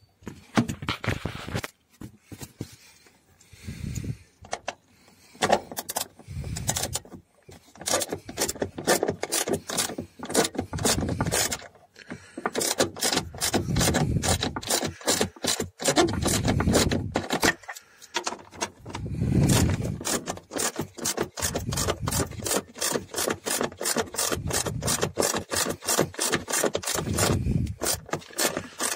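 Hand socket ratchet clicking in quick runs as its handle is swung back and forth, loosening a car door check strap's mounting bolt, with soft handling knocks in between.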